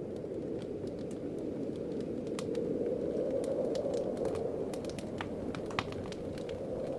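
Wood fire crackling: scattered sharp pops and snaps over a steady low rushing noise, with one louder pop about six seconds in.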